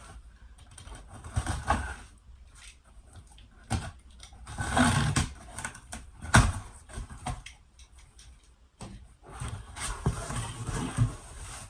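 Handling noise of cardboard boxes and packaging: irregular rustling and scraping, with a sharp knock a little past the middle.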